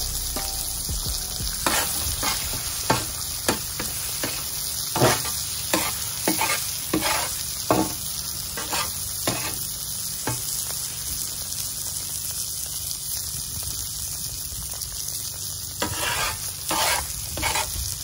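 Eggs sizzling on a hot Blackstone 17-inch propane griddle, with a metal spatula scraping and tapping on the flat-top plate as the eggs are broken up and scrambled. The spatula strokes come every half second or so for the first ten seconds, stop for a few seconds of sizzle alone, then start again near the end.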